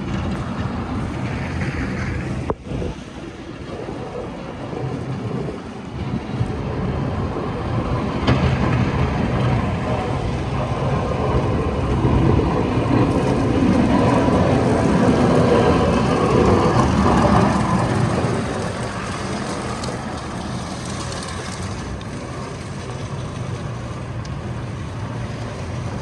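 Street traffic noise, swelling for several seconds around the middle as a vehicle goes by, then easing off.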